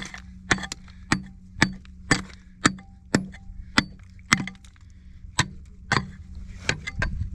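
Short-handled pick striking and chipping into rock, about a dozen sharp metal-on-rock blows at roughly two a second, a few with a brief ring, and a short pause about four and a half seconds in.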